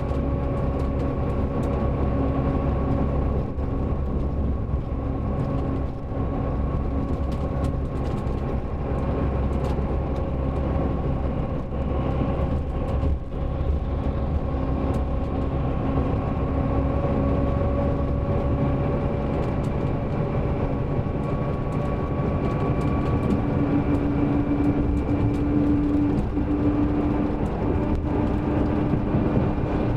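Mercedes-Benz OM-457LA inline-six turbodiesel engine of a double-decker coach running steadily: a low rumble with a steady hum whose pitch drifts slowly, strengthening and rising slightly about three-quarters of the way through.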